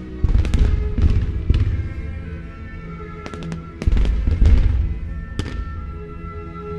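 Fireworks display: aerial shells bursting in sharp cracks and deep booms, in two dense clusters about a second in and around four seconds in, with a single crack near the end. Under it, the orchestral music that the show is set to plays steadily.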